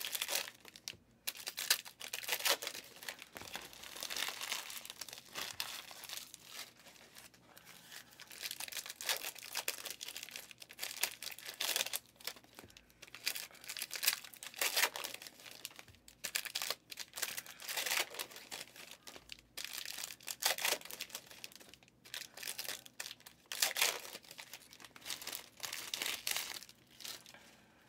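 Foil wrappers of football trading-card packs crinkling and tearing as packs are ripped open, in irregular bursts of crackle with short pauses between them.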